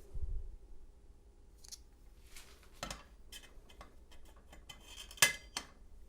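Master Lock 230 padlock being handled after reassembly: a low bump at the start, then a string of sharp, irregular metallic clicks from the key, cylinder and shackle, the loudest about five seconds in.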